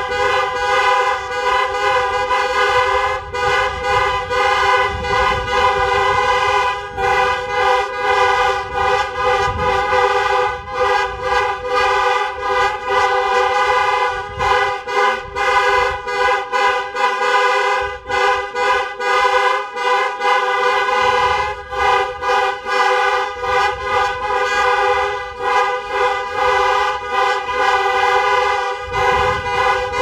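Hundreds of MINI car horns honking together, a dense steady blare on the same few pitches with brief, ragged breaks throughout.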